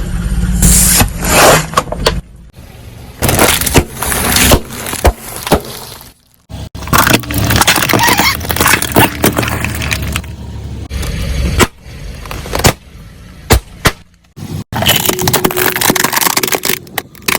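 Car tyres rolling over and crushing crunchy objects: loud cracking, breaking and crunching, in several short takes separated by abrupt cuts.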